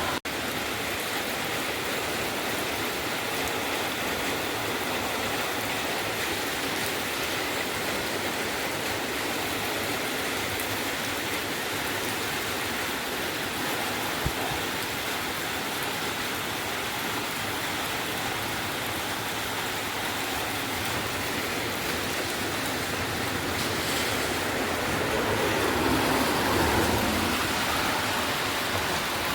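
Steady rain falling, an even hiss of water with no break. About 25 seconds in it swells louder for a couple of seconds, and there is a single small click halfway through.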